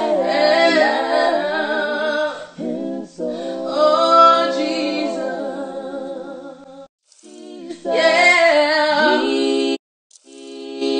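Background music: a cappella singing, a woman's voice holding long notes with vibrato and sliding between pitches. The singing breaks off briefly twice, about seven and ten seconds in.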